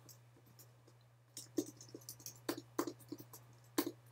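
Faint clicks and taps from a computer keyboard and mouse: a handful of separate sharp clicks, the loudest about a second and a half in, twice around the three-second mark, and once near the end, over a low steady hum.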